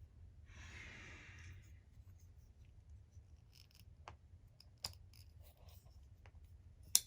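Faint handling of a Smith & Wesson Extreme Ops folding knife: a soft rushing noise about a second in, then a few sharp clicks of the blade, the loudest one near the end.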